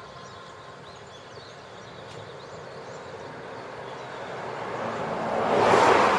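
A vehicle passing on the road: tyre and engine noise grows steadily louder and peaks near the end as it goes by.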